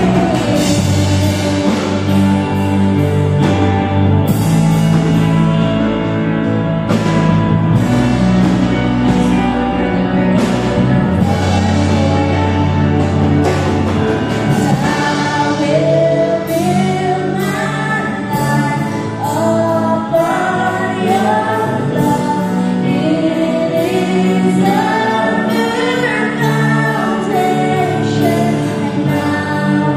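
Live worship band with a drum kit, guitars and keyboard backing a female lead singer. The first half is mostly instrumental with a heavy bass line, and the sung melody comes back in about halfway through.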